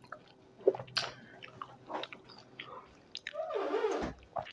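Close-miked eating sounds of dahi puri: chewing with scattered sharp clicks and crackles as a crisp puri shell is dipped and scooped through thick curd, and a longer wet squish near the end.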